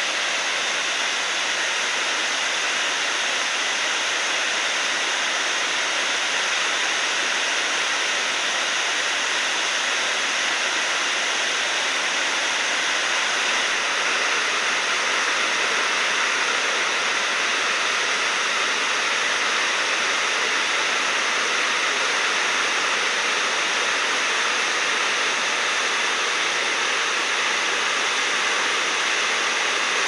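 Chinda Falls, a wide waterfall of many strands pouring over a rock ledge into a pool: a steady, even rush of falling water.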